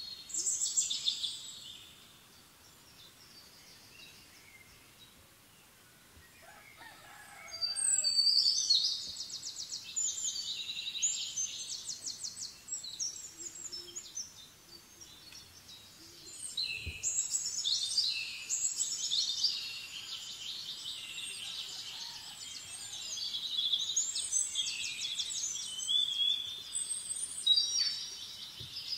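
Birds singing in high, rapid trilled phrases that come in bouts of several seconds, with quieter lulls between.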